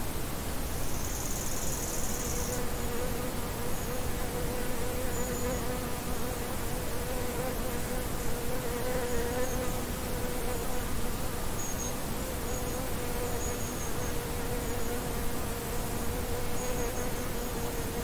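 A flying insect buzzing close to the microphone, a steady hum that wavers slightly in pitch, with short high chirps of meadow insects here and there over a steady background hiss.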